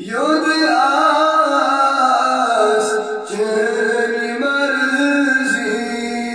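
Man singing a Kashmiri devotional song into a microphone, coming in sharply at the start and then holding long, ornamented notes that glide up and down in pitch.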